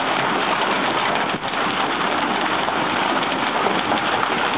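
Heavy rain in a thunderstorm, pouring steadily onto the ground and parked cars.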